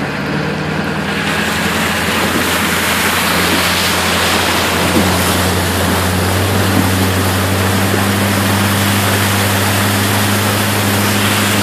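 Muddy flash-flood water rushing and churning across a road, a loud, steady rush that builds over the first second or so. A vehicle's engine runs steadily underneath it as a low hum.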